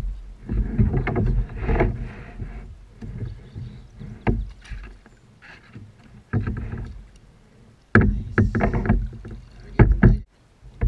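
Splashing and a run of knocks and rubbing against a kayak as a hooked largemouth bass is lifted aboard and handled, in several loud bouts with sharp clunks and short quiet gaps between them.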